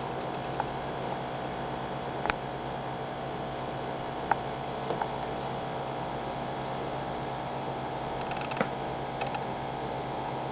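Steady electrical hum, with a few light clicks and taps scattered through it, about six in all.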